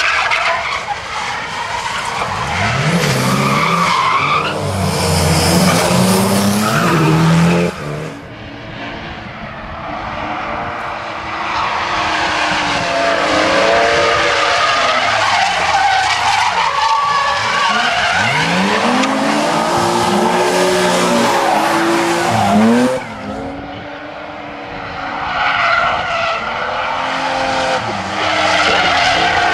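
Drift cars sliding through a corner, engines revving up and down hard while the tyres squeal and skid. The sound changes abruptly about 8 seconds and 23 seconds in.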